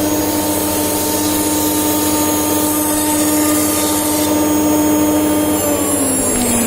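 VENO UC481-1325 CNC router's spindle running with a steady high whine over machine noise. Near the end its pitch glides down as the spindle slows.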